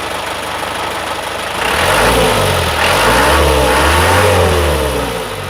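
Light truck's engine running, revved up about two seconds in, held, then easing back down near the end.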